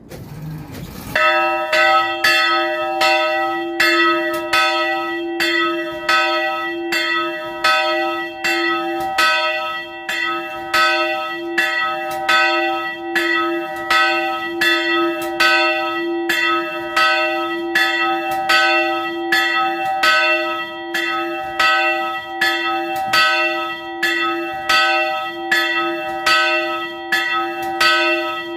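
Early-18th-century Nuspicher bronze church bell ringing as it swings, its clapper striking regularly about once a second from about a second in, each strike ringing on into the next.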